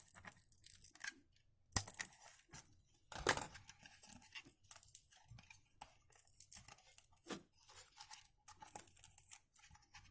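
Plastic parts of a power strip being trimmed and handled: irregular sharp clicks, cracks and scraping, with louder snaps about two and three seconds in.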